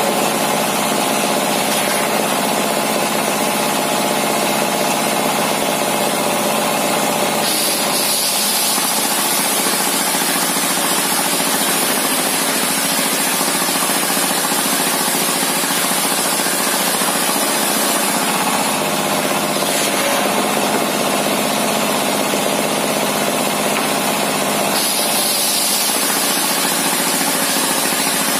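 Homemade circular saw bench driven by a diesel engine, running steadily while a large timber beam is ripped lengthwise. A high saw hiss swells and fades several times over the steady engine note as the blade bites into the wood.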